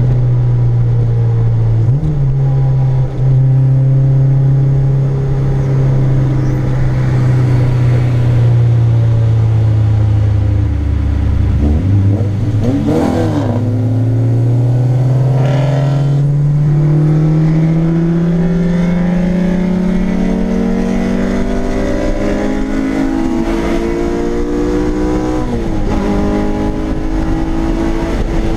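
Honda Civic EG's swapped K24 inline-four engine heard from inside the cabin, running steadily at cruise, then pulling in gear from about halfway through, its revs climbing slowly and evenly for around ten seconds before levelling off near the end.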